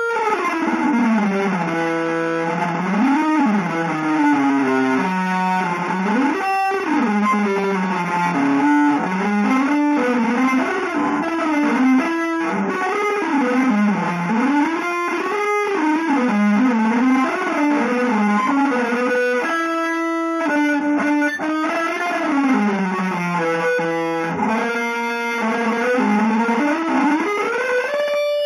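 Electric guitar improvising a free, atonal single line that keeps gliding smoothly up and down in pitch.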